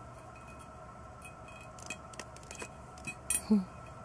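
Small scattered clicks and light clinks from hands trimming a wooden incense stick and fitting it into a ceramic incense burner. A couple of sharper ticks a little past three seconds in are the loudest.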